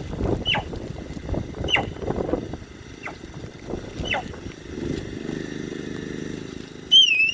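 Sika deer whistling: three short, sharp whistles that drop quickly in pitch, then near the end a longer, louder whistle that wavers as it falls. These are the whistles sika deer use to signal danger and warn one another.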